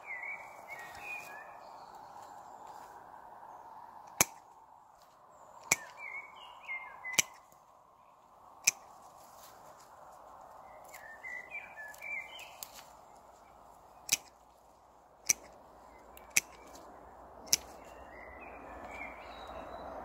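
Pruning shears snipping through thin cramp bark (Viburnum opulus) stems: eight sharp clicks in two runs of four. A bird sings short chirping phrases every few seconds in between.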